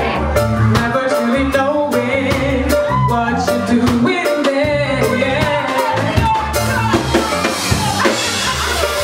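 Live reggae band playing, with drum kit and a pulsing bass line under melody instruments at a steady beat.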